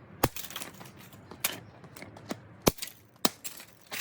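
Hard plastic and small metal parts of a torn-down robot vacuum being handled and knocked against a surface: a string of sharp, separate clicks and knocks, about six in four seconds.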